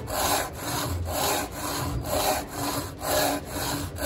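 Hand saw cutting across a small wooden block, its teeth rasping through the wood in steady back-and-forth strokes, about two a second.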